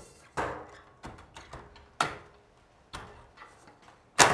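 Sharp clicks and knocks, five in about four seconds with the loudest near the end, as a fluorescent tube is twisted and worked out of its light fixture's end sockets by its prongs.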